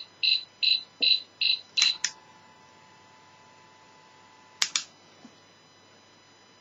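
Small speaker of a home-built electronic cricket noise-maker kit chirping: about seven short, high electronic beeps, evenly spaced about two and a half a second, stopping about two seconds in. Two sharp clicks follow about three-quarters of the way through.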